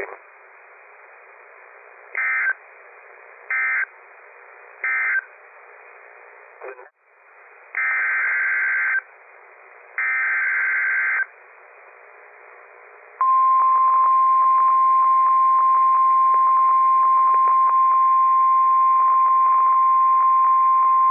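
NOAA Weather Radio Emergency Alert System signalling over radio static. First come three short buzzy data bursts, the EAS end-of-message code, closing the warning just read. After a brief dropout come two longer buzzy data bursts, the SAME header of the next alert. Then the steady, piercing 1050 Hz Warning Alarm Tone sounds for about nine seconds, announcing a new warning.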